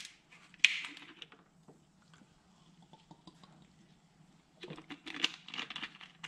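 Handling of a plastic soda bottle: a click and a short hiss in the first second, a quiet stretch while it is drunk from, then a run of small clicks and plastic crackles near the end as the cap is screwed back on.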